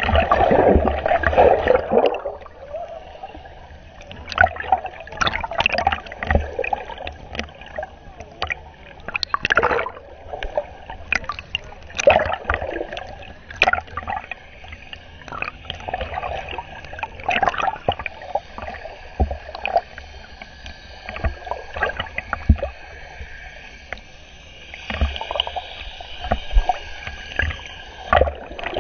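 Water sloshing and gurgling around a camera held underwater, with irregular muffled knocks and clicks. A louder churning splash comes in the first two seconds.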